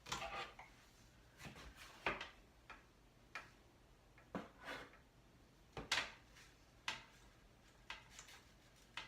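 Hair being combed through and handled while sectioning it for crimping: irregularly spaced light clicks and brief swishing strokes, about ten in all.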